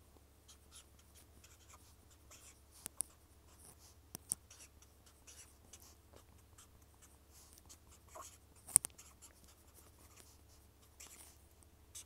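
A pen drawing on paper: faint, scattered scratching strokes with a few sharper clicks, the loudest about nine seconds in.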